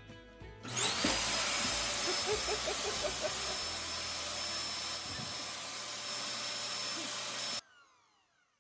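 PetraTools electric backpack fogger starting up: its motor spins up with a rising whine, then runs as a steady rush of air under a high whine. It cuts off abruptly near the end.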